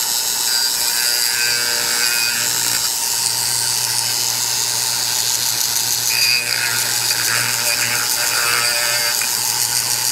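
Flexible-shaft rotary tool running steadily, its abrasive cartridge roll deburring and chamfering the port edges inside a two-stroke motorcycle cylinder. The rougher grinding comes in two spells, about two seconds in and again from about six to nine seconds in.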